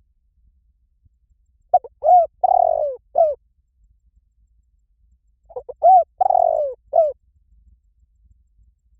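Spotted dove cooing: two phrases of four or five low, arched coo notes each, about four seconds apart.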